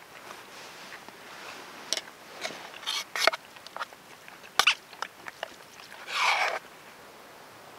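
A metal fork clinking and scraping in a small camp pot while a man eats: a scatter of sharp clicks through the middle, then a short, louder rushing sound near the end.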